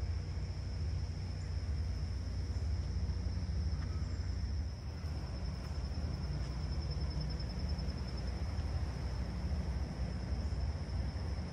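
Insects trilling in a steady, high, unbroken chorus over a continuous low rumble.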